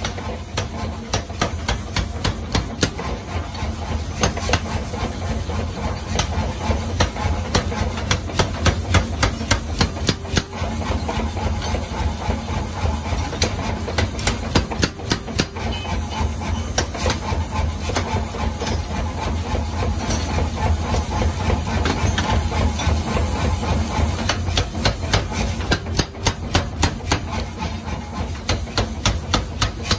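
Power hammer pounding a red-hot steel pickaxe head in rapid, repeated blows, over the steady low drone of the running machine.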